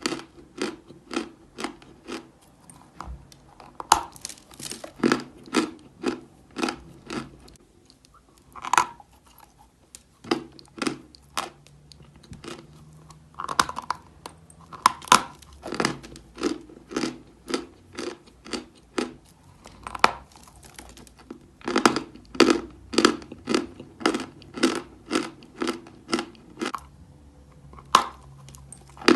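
Chalk being bitten and chewed close to the microphone: a run of crisp, dry crunches about two a second, broken by a few short pauses.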